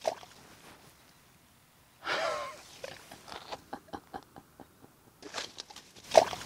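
A man's long wavering groan of dismay at a lost hooked bass, followed by a run of small clicks and rustles, and near the end two short sharp exhalations.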